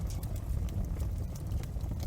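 Wood fire in a fireplace crackling, with irregular small pops and snaps over a steady low rumble of the flames.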